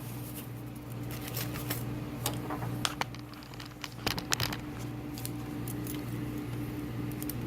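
Small metallic clicks and taps of a lock and its key being handled and worked by hand, a few sharper clicks in the middle, over a steady low hum.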